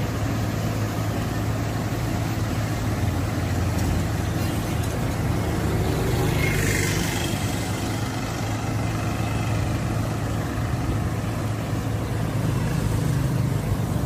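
Diesel engine and machinery of a truck-mounted micro-surfacing paver running steadily with a low hum while it lays the slurry surface. A brief rushing noise comes about halfway through.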